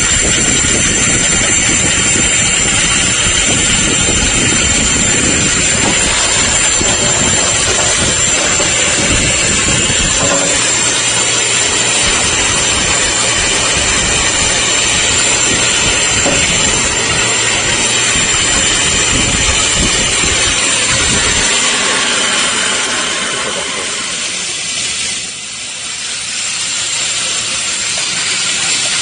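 Nambu compressed-air sludge cleaner running: a loud steady hiss of air with a high whistle over it, as air drives the suction. A lower rumble under the hiss drops away about three quarters through, and the level dips briefly near the end.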